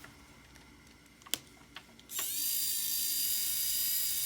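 A small electric precision screwdriver, a pen-style hex driver, starts with a sharp click about two seconds in and then runs with a steady high whine. Before it starts there are only faint clicks of hand handling.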